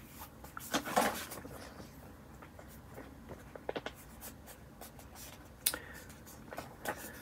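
Paper rustling and crinkling as a sheet of paper stickers is handled and a sticker is peeled from it, with scattered light clicks and taps. The loudest rustle comes about a second in.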